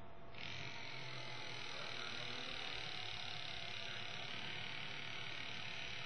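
Greenlee EK425 battery-powered hydraulic crimping tool running its motor and pump steadily through a crimp, starting about half a second in. The tool is working normally after being submerged in water.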